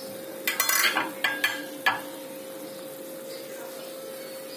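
Several sharp metal clinks and knocks of utensils against a steaming kadhai of vegetable curry in the first two seconds, then a faint steady sizzle of the vegetables cooking, with a steady hum throughout.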